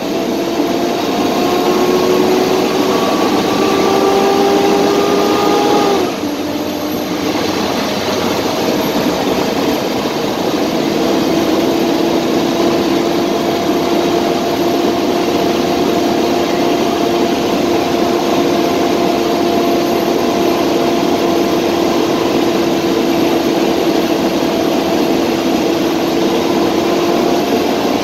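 Straight-piped International DT466E inline-six diesel of a school bus, heard from the cab, pulling under acceleration. The pitch climbs for about six seconds, drops at an upshift of the Allison automatic transmission, then holds nearly steady as the bus settles at cruising speed.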